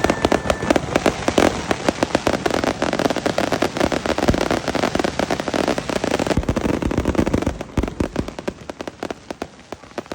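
Fireworks going off in a dense, rapid crackle of many small pops and bangs, thinning out in the last two seconds or so.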